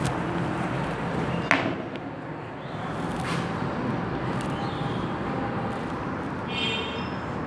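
Marker writing on a whiteboard, with a short squeak near the end, after a sharp knock about one and a half seconds in, over a steady background hiss.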